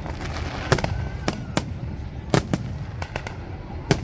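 Fireworks display: aerial shells bursting in a string of sharp bangs, one or two a second, over a steady low rumble.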